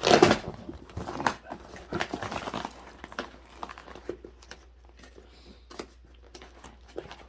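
Cardboard shipping box and its packing being pulled open and handled: crinkling and rustling with sharp crackles, busiest in the first three seconds, then fading to scattered light clicks.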